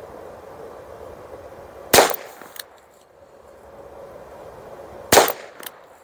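Two shots from a Ruger Wrangler Birds Head .22 Long Rifle single-action revolver, about three seconds apart. Each crack is followed about half a second later by a fainter sharp sound.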